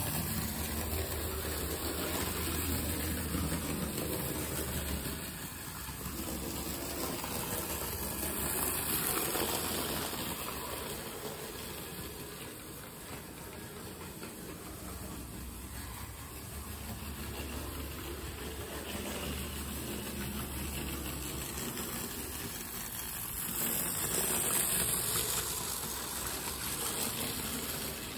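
Hornby HO clockwork Thomas toy locomotive running on the track under its wound spring, a steady mechanical running sound that swells and fades as the train circles the layout.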